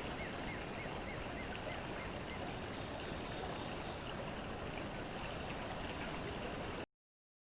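Creek water running steadily, with a quick run of high chirps about four a second over the first two seconds. The sound cuts off suddenly into silence about a second before the end.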